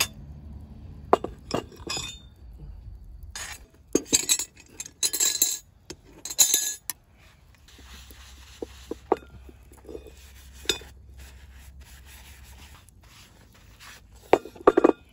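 Small cast-iron Dutch oven and its lid clinking and scraping as they are handled with leather gloves: scattered knocks, a run of short scraping bursts about four to seven seconds in, and a quick cluster of clinks near the end.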